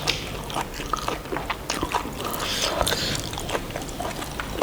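Chewing and wet mouth sounds of buffalo innards being eaten, picked up close, as irregular soft clicks and smacks.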